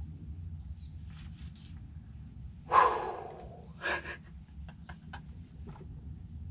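A man's heavy, excited breathing right at the microphone, with one loud sudden exhale about three seconds in and a shorter one about a second later, then a few light clicks.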